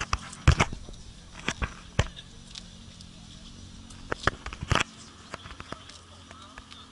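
Irregular clicks and knocks from a handheld camera being handled and carried while walking, loudest about half a second in and again near the end, over a faint steady low hum.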